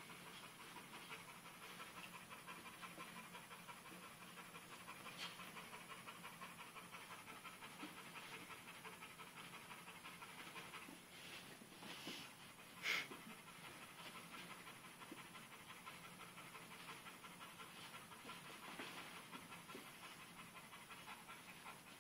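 Pitbull puppy panting steadily while it plays, with one short sharp knock about halfway through.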